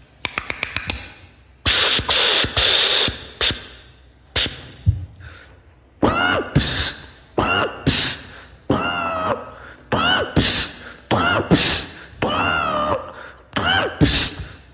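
Sound-effect music for popping dance. It opens with a quick run of clicks, then noisy hits, and from about six seconds in short, robotic, voice-like stabs with bending pitch come in an uneven rhythm, roughly one to two a second.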